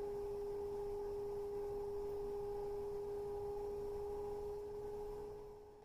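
Electric potter's wheel motor whining at one steady pitch as the wheel spins, fading out near the end.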